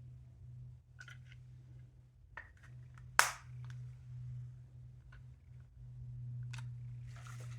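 Small plastic clicks and taps from handling a plastic toy train, with one loud, sharp snap about three seconds in and a short rustle near the end.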